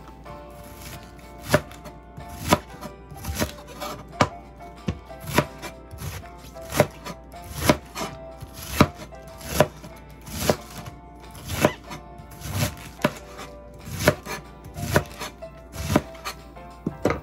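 A kitchen knife chopping through cabbage onto a cutting board, a sharp knock about once a second in a steady rhythm.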